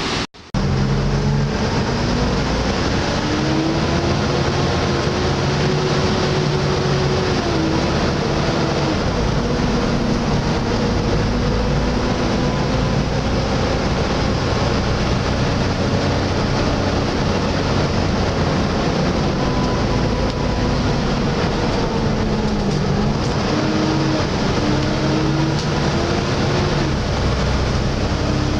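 Volvo B7TL double-decker bus's six-cylinder diesel running hard with its loud turbo whine, the 'hoover'. The whine climbs and then drops back at each gear change. The sound cuts out for a split second just after the start.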